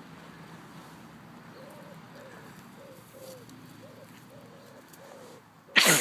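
Pet pig sneezing once, sharply, near the end, after a run of soft, short rising-and-falling calls about twice a second.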